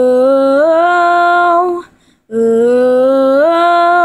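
A girl singing unaccompanied without words: two long held notes of about two seconds each, each stepping up in pitch partway through, with a short breath between them.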